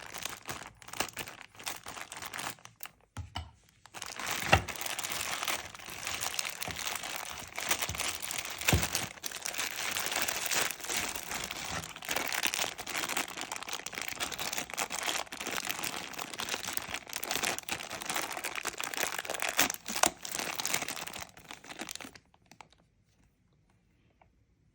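Toy packaging being handled and unwrapped: steady crinkling and rustling of plastic wrapping, with a few sharp knocks, stopping shortly before the end.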